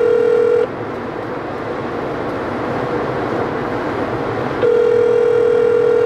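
Telephone ringback tone of an outgoing call ringing unanswered: a steady tone that stops about half a second in and sounds again for about two seconds from about four and a half seconds in, over steady car cabin road noise.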